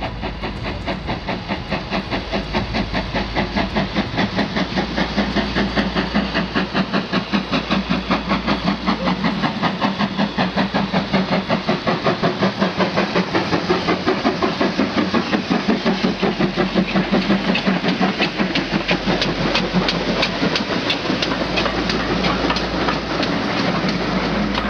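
Steam locomotive sound: quick, even chuffing with hiss, building in loudness to a peak about two-thirds of the way through, then easing slightly.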